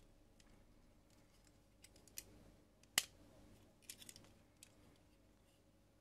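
Faint clicks and ticks of plastic and metal parts of a wall socket being handled and pressed together, with one sharper click about three seconds in.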